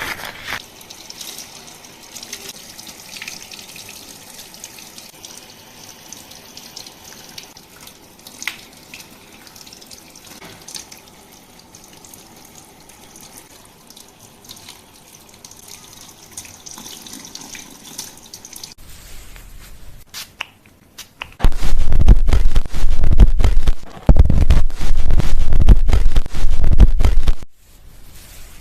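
Water running during a hair wash at a salon basin: a soft, steady splashing and trickling. About 21 seconds in, a loud low rumble starts close to the microphone, stops briefly, resumes, and cuts off about six seconds later.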